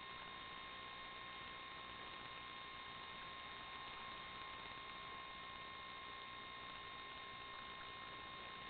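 Steady faint electronic hiss with a constant thin whine over it, unchanging throughout, with no motor or other events.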